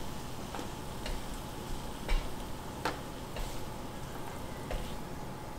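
Shrimp sizzling on an electric griddle in a steady hiss, with a few sharp clicks of wooden chopsticks against the griddle and plate as the cooked shrimp are lifted off.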